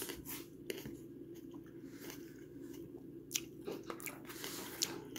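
Close-up sounds of a person eating cottage cheese and cherry tomatoes with a spoon from a paper bowl: chewing with sharp wet clicks now and then, over a steady low hum.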